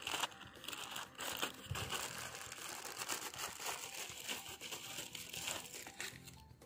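Irregular crinkling and rustling with many small clicks, the sound of something being handled. It dies away near the end.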